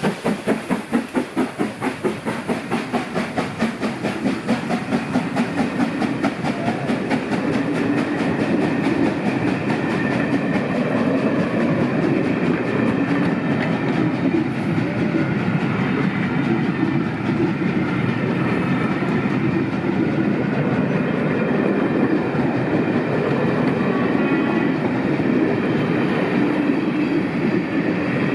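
Steam locomotive 46233 Duchess of Sutherland, a four-cylinder LMS Princess Coronation pacific, passes close by with rapid, even exhaust beats as it works hard to get up to speed on a climb. The beats fade over the first six seconds or so, giving way to a steady rumble and clatter of the coaches' wheels rolling past on the rails.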